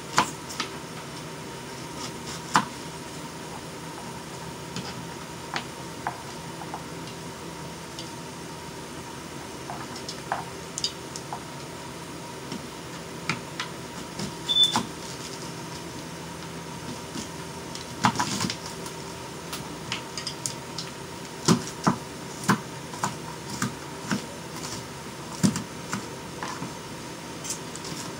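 Kitchen knife chopping onions on a cutting board: irregular sharp knocks, sparse at first and coming quickly and often in the second half, over a steady background hum with a faint whine.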